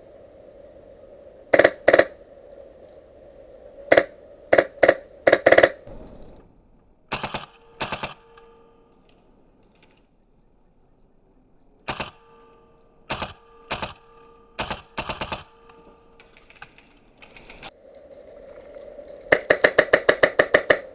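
Airsoft rifles firing single shots and short bursts, some loud and close, others quieter. Near the end comes a fast full-auto burst of about a dozen shots.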